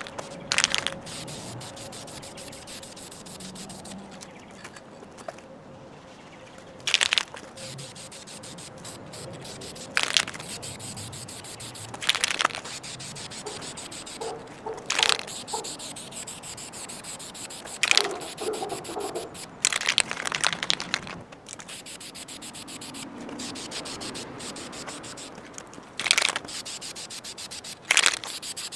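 Aerosol can of VHT wrinkle-finish paint spraying in short hissing bursts, about nine passes each lasting under a second and spaced a few seconds apart, as a coat of wrinkle paint goes onto a metal radio cabinet.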